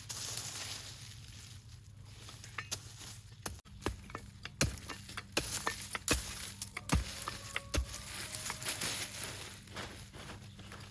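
Scattered sharp knocks and clicks over a steady faint hiss, thickest in the middle, with a low hum starting about a third of the way in.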